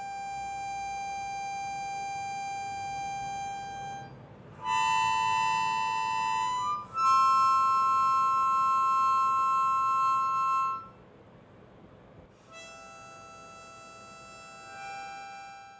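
Background music of slow, long-held notes and chords, each sustained for a few seconds, with brief breaks between them.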